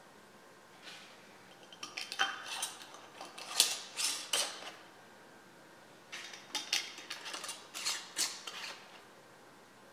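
Metal lids set on glass Ball mason jars and their screw bands twisted down, clinking and scraping in two bursts, one jar after the other.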